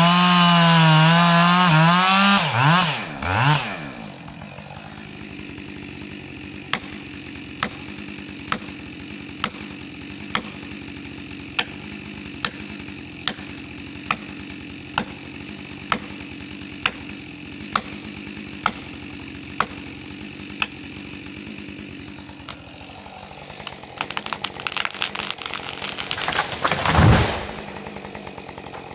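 Chainsaw cutting at full throttle into the base of a large pine, then dropping to idle about three seconds in. While it idles come about fifteen sharp strikes, roughly one a second, as an axe drives a felling wedge into the cut. Near the end, crackling and snapping as the pine goes over, ending in a heavy thud as the trunk hits the ground.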